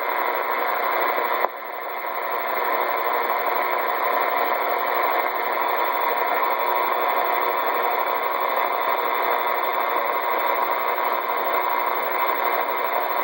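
Two-way radio speaker hissing with steady static, a band of even noise with no voice in it, dipping slightly in level about one and a half seconds in.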